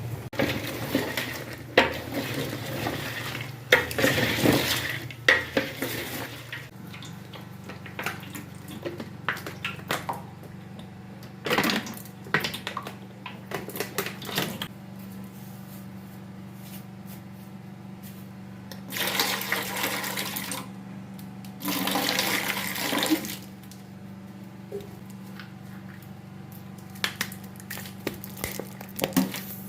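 Kitchen water running and splashing in several bursts of one to two seconds, with knocks of pots and dishes, over a steady low hum.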